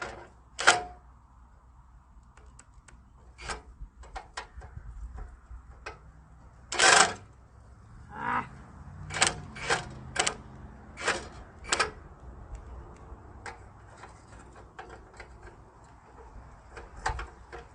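Hand tools on the radiator support bolts: scattered metallic clicks and clanks as a wrench or socket is fitted and worked. The longest and loudest clank comes about seven seconds in, and several sharp clicks follow over the next five seconds.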